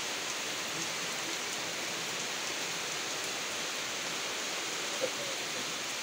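Steady rain falling on a muddy dirt yard and garden plants: an even, constant hiss of rain.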